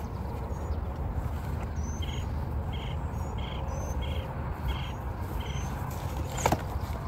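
Gravity hammer (a rubber dog chew-toy on a thick nylon cord) whistling as it is swung round: six short whistles about two-thirds of a second apart, starting about two seconds in. Near the end, a sharp knock with a brief ring as the weapons meet.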